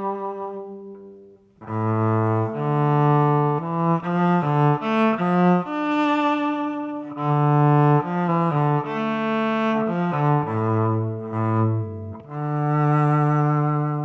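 Yamaha SVC-210 silent electric cello bowed through its onboard effect with the least reverb: a slow melody of sustained notes. It pauses briefly about a second in and ends on a long held note that fades away.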